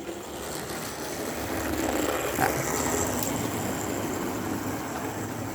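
Model trains running on the layout track: a steady rolling rumble of small wheels on rail with the locomotive motor's whirr, growing a little louder about two seconds in, with a few light clicks.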